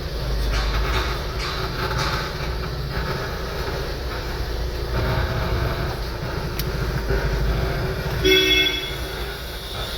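Tata Safari on the road with a steady low rumble, the rear-wheel noise still present after service: something in the wheel is rubbing. A vehicle horn toots briefly about eight seconds in.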